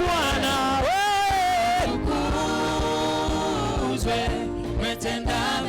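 Swahili gospel praise music: a singer holds one long note about a second in, then the instruments carry on with held chords and several sharp percussive hits near the end.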